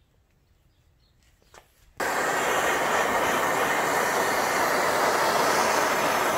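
Near silence with a faint click or two, then about two seconds in a MAP gas torch flame starts up abruptly and burns with a steady, even rushing hiss, preheating the gray cast iron axle housing before welding.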